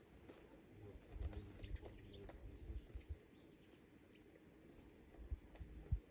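Small birds chirping: short, high chirps that slide downward, often in pairs. Soft low thumps sound underneath, with one sharper thump near the end.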